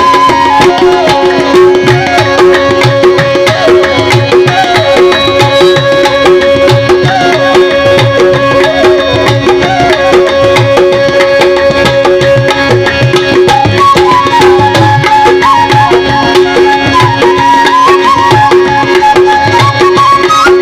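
Music: tabla keeping a steady rhythm under sustained drone notes, with a melody line that wanders up and down over them.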